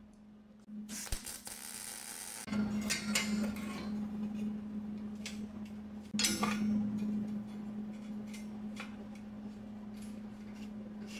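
A short hiss of MIG shielding gas about a second in. Then a steady hum under scattered metallic clinks and knocks of steel plate and tools being handled on the bench.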